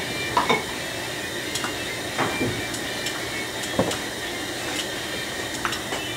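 Metal distributor parts and hand tools handled on a workbench: a few scattered light clinks and taps over a steady background hiss.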